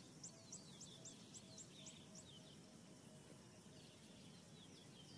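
Birds calling faintly: a fast run of short, high, falling chirps, about three a second, that stops about two seconds in, followed by scattered lower chirps over a soft background hush.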